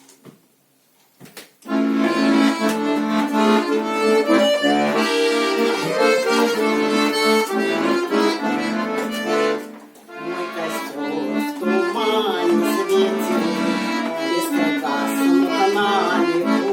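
Bayan (Russian button accordion) music: the instrumental introduction to a song, starting about a second and a half in, with a short pause a little past halfway before the playing resumes.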